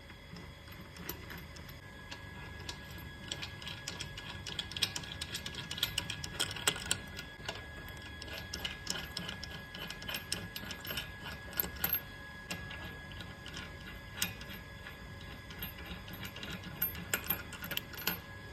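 Rapid, irregular metallic clicking from hand tools as the car is jacked up and its wheel bolts are spun out.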